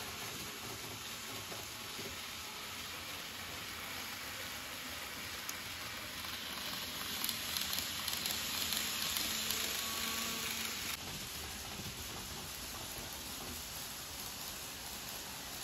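N-gauge model train running along the track: a steady hiss of small wheels and motor that grows louder for a few seconds as a train passes close, then drops off suddenly.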